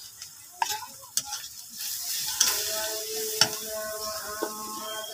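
Metal spatula stirring and scraping onions and ground spices in hot oil in a karahi, with a few sharp clinks of the spatula against the pan. Sizzling grows louder from about two seconds in as the spices fry.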